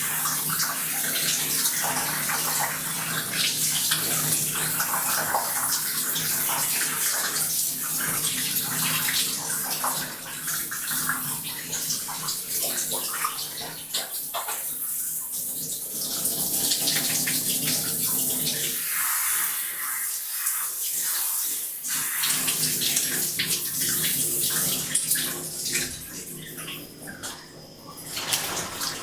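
Water from a shower running into a bathtub: a steady spray and splash that thins out for a moment several times, as the stream is moved or broken.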